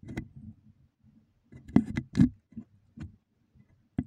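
Handling noise: irregular rubbing and knocks, with three louder thumps close together about two seconds in and a sharp knock near the end.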